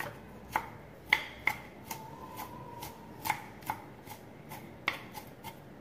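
Kitchen knife chopping diced onion on a wooden chopping board: sharp, irregular taps of the blade striking the board, about two a second.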